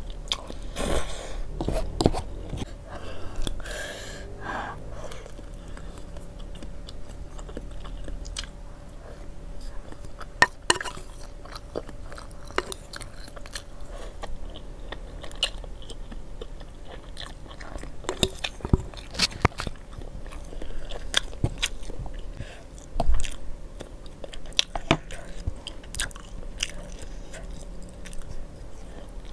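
A person eating instant noodles and enoki mushrooms: noodles slurped into the mouth and chewed, with many short wet mouth clicks and smacks. One louder thump comes about three quarters of the way through.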